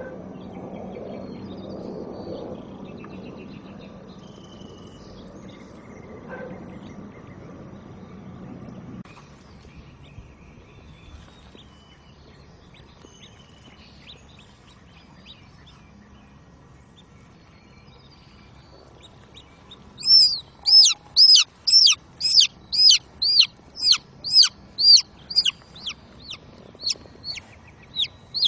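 A chick peeping loudly and fast, high arching peeps at about two a second, starting about two-thirds of the way through and getting somewhat fainter near the end. Before that, only faint bird chirps over low background noise.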